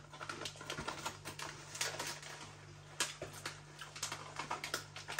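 Close-up chewing of crunchy, club-shaped spicy tomato crisps: rapid, irregular crunches.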